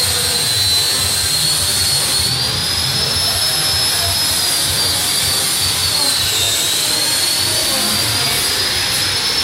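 A power tool's electric motor running steadily with a high whine that slowly rises and falls in pitch, over a constant rushing noise.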